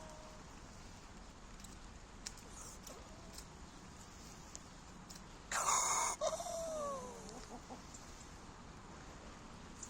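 A sick chicken gives one harsh, raspy call about halfway through: a rough, breathy burst followed by a short falling squawk. The owner says the bird can't breathe, and the rasp fits that breathing trouble.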